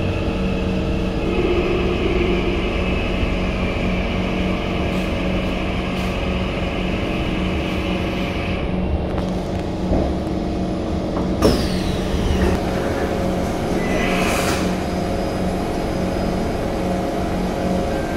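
Interior of an SMRT C151 metro train with PMSM traction motors, slowing to a stop at a station platform: a steady electric hum and whine with several held tones, a sharp clunk with a brief falling whistle about eleven seconds in as it stops, then a short hiss a few seconds later as the doors open.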